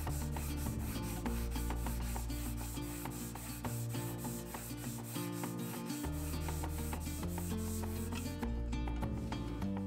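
Sandpaper on a sanding block rubbed back and forth by hand over a wooden drawer, a steady scratchy rubbing. Quiet background music with held notes runs underneath.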